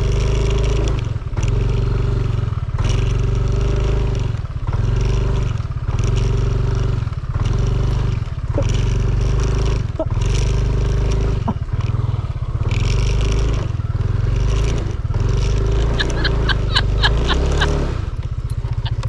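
Yamaha motor scooter's engine running under light throttle, ridden slowly over a rough, rutted dirt road. Its drone dips briefly every second or two as the throttle is eased on and off.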